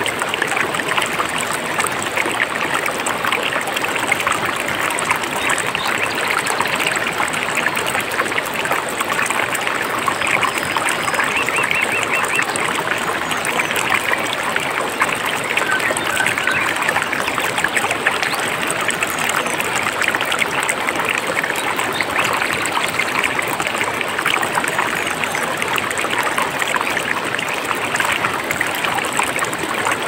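Mountain stream flowing and babbling steadily over rocks, an even rushing trickle with no pauses.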